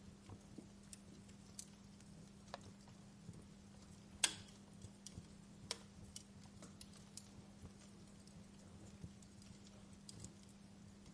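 Wood fire crackling: scattered small pops and snaps, the loudest about four seconds in, over a faint hiss and a low steady hum.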